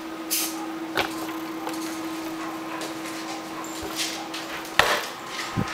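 Computer case being turned around on a countertop: a few knocks and bumps, the loudest near the end, over a steady hum.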